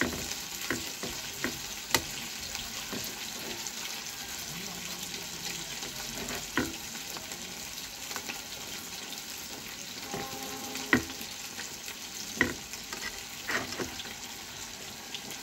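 A steel spoon scraping and clicking on a steel plate as it cuts a soft dhoka into pieces, with a few sharp clicks. Under it runs a steady sizzle of food frying in oil.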